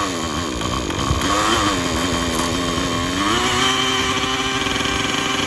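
OS 55 two-stroke glow engine with a tuned pipe in a nitro RC helicopter, spun by an electric starter and firing, its pitch wavering unevenly. About three seconds in it steps up to a steady idle, running on its own.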